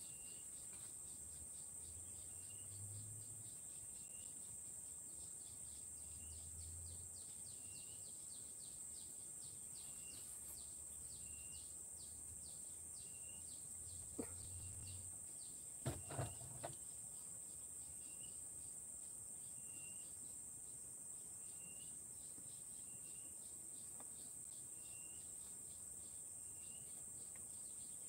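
Steady high-pitched insect chorus with a fast ticking pulse and a short chirp repeating about once a second. A few knocks sound a little past halfway through.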